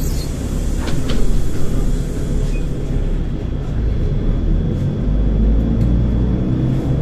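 Inside a Volgabus-5270.G2 city bus running on liquefied natural gas: steady engine and road rumble while driving, with a few short clicks about a second in. The low rumble grows heavier around five seconds in.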